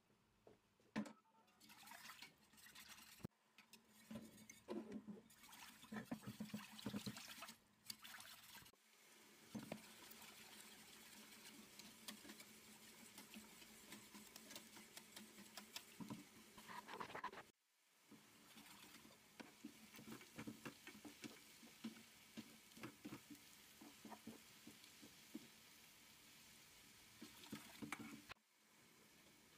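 Faint sound of a wire whisk stirring a thin soup in a stainless steel pot: liquid sloshing with many small clicks and scrapes of the wires against the pot, broken by a few abrupt cuts.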